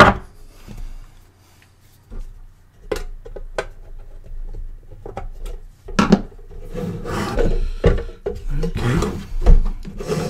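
Clicks, knocks and scraping as the case of a hot air desoldering station is turned over by hand and a screwdriver is picked up and worked at the screw holes; the handling gets busier in the second half.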